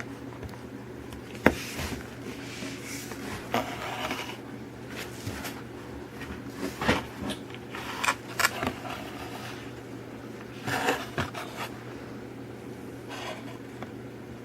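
Handling noises from a die-cast toy car being turned over in the hands: scattered clicks, taps and rubbing, with a few sharper clicks, over a steady low hum.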